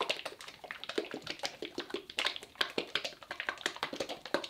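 Small plastic bottle of liquid 3D-printer resin being shaken hard by hand, giving a fast, even run of knocks, to mix the resin before it is poured into the printer's vat.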